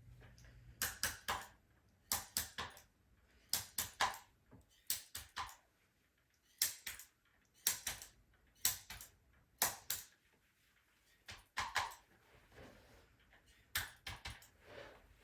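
Sharp clicks and taps from chiropractic adjusting work on a patient, coming in quick clusters of two or three about once a second.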